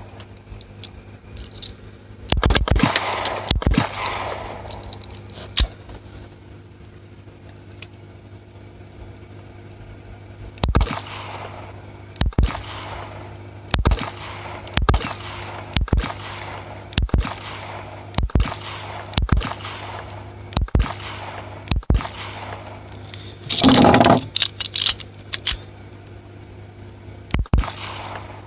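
Glock 17 9mm pistol firing single shots, each followed by a ringing echo: a quick string of several shots a couple of seconds in, then a slower, even pace of about one shot a second from about ten seconds on. A longer, louder burst of noise comes near the end.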